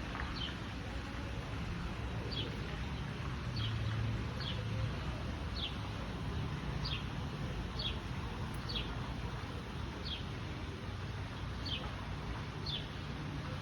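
Garden water fountain splashing steadily over a low hum, while a bird repeats a short falling chirp about once a second.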